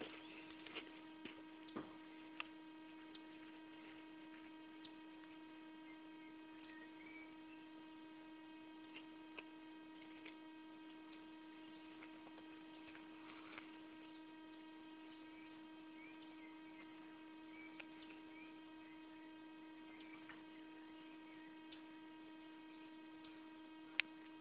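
A steady electrical hum with overtones runs under near silence, with a few faint clicks and knocks of handling, the loudest near the end.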